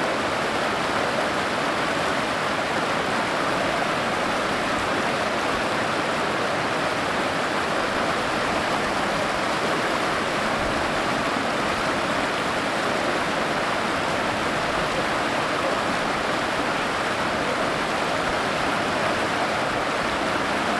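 River rapids rushing steadily over and around boulders.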